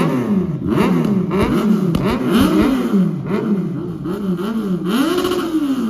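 Kawasaki Z900 inline-four with an aftermarket exhaust, revved in about ten quick throttle blips, the pitch rising and falling each time, with a longer, higher rev near the end. Loud.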